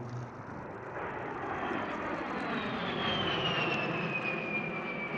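A-10 Thunderbolt II's twin TF34 turbofan engines passing overhead: a steady jet rush that builds to its loudest about three to four seconds in, with a high engine whine sliding down in pitch as the aircraft goes by.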